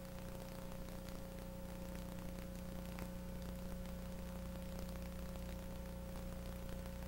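Steady electrical hum with a few held low tones under an even hiss, the noise floor of a blank stretch of recording. A faint click comes about three seconds in.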